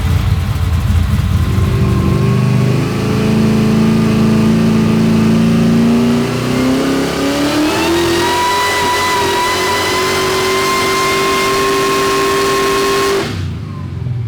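Supercharged 389ci GM iron-block V8 making a full-throttle dyno pull: the engine note climbs steadily in pitch, holds high for several seconds, then cuts off suddenly near the end as the throttle closes, falling to a lower rumble.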